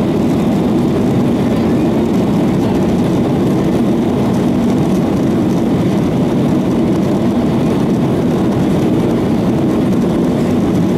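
Boeing 737-800's CFM56-7B turbofan engines running at take-off thrust during the take-off roll, heard from inside the cabin as a loud, steady noise.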